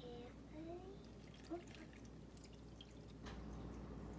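Water being poured from a glass measuring cup into a glass bowl of dry cake mix: faint trickling and dripping, with a few short rising plinks in the first second and a half.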